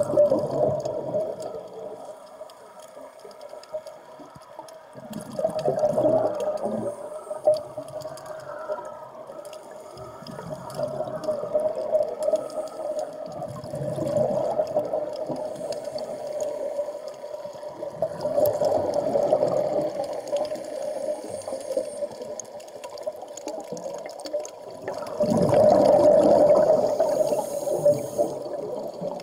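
Scuba divers breathing through regulators underwater: bursts of exhaled bubbles gurgle past about every five to six seconds, the loudest near the end, over a steady hum.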